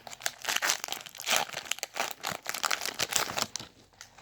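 Foil wrapper of a Pokémon booster pack crinkling and crackling as it is handled and torn open, dying away about three and a half seconds in.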